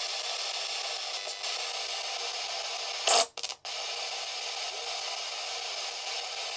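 Handheld radio used as a spirit box (S-Box) hissing with steady radio static. About three seconds in there is a short, louder burst, and the static cuts out twice right after.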